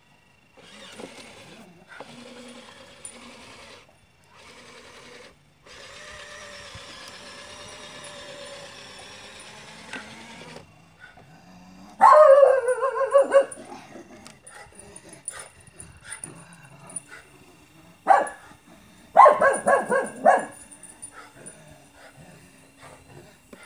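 A dog barking and whining in loud bursts, one about halfway through and a longer one about three-quarters through, after a steady hiss-like noise that stops and starts a few times during the first ten seconds.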